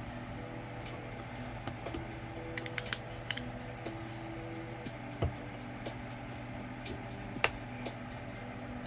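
Small clicks and taps of a metal bracelet clasp being worked by hand, with a louder single click about seven seconds in, over a steady low hum.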